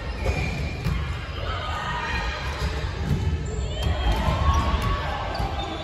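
Indoor volleyball play in a large gym: sharp knocks of the ball being hit and bouncing on the court, with short squeaks that rise and fall, echoing in the hall.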